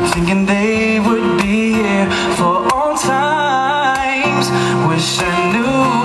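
A man singing live, holding wavering notes over his own strummed acoustic guitar.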